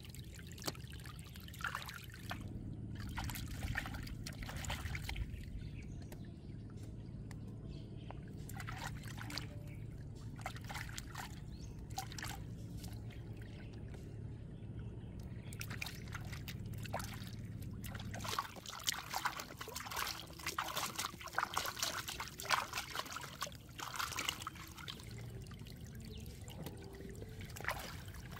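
Stream water trickling while hands wash eggs and bell peppers in it. About two-thirds of the way in, a busy run of small splashes and knocks begins.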